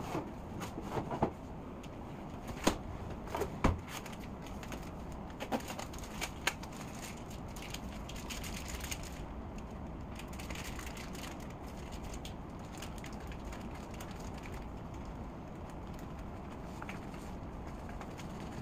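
Kitchen handling sounds at a counter: a handful of sharp knocks and clicks in the first seven seconds, then a steady low background hum with faint rustling of food packaging.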